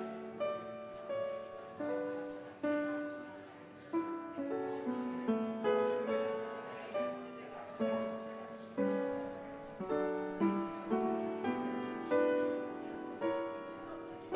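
Instrumental piano music: a slow melody with chords, each note struck and then fading, a new one roughly every half second to second.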